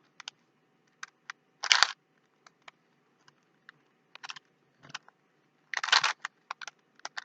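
Plastic Rubik's Cube being twisted by hand: scattered light clicks, with a few louder clattering turns about two, four and six seconds in.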